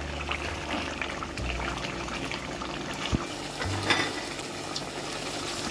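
Beef liver in a thick gravy bubbling and sizzling in a nonstick pan as its water is cooked off, with a silicone spatula stirring through it. There are a couple of sharper knocks or scrapes about three to four seconds in.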